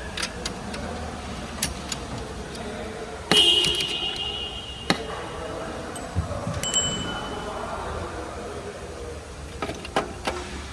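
Scattered metallic clinks and knocks, like hand tools being handled against metal. A louder clank about three seconds in and a double one near seven seconds each ring briefly with a thin high tone.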